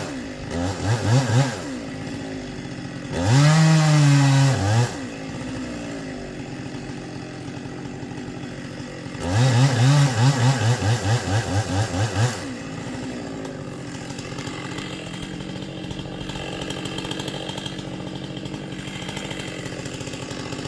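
Chainsaw engine idling and being revved. There are a few short blips about a second in and a held run at high revs of about two seconds from about three seconds in. From about nine seconds in comes a string of quick throttle blips lasting about three seconds, then it settles back to idle.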